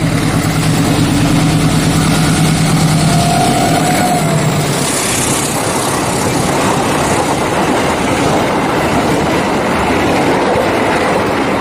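Diesel locomotive passing close with a steady engine drone, giving way about five seconds in to the passenger coaches rolling by in a continuous rush of wheel and rail noise.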